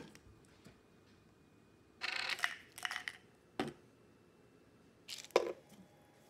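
Plastic bottles being handled while taking softgel capsules with a drink: a crackling rattle about two seconds in, then a click, then a sharp knock shortly before the end.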